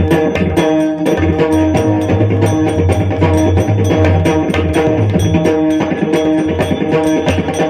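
Marathi kirtan devotional music: held melodic notes over drums, with sharp percussion strikes keeping a steady beat of about three to four a second.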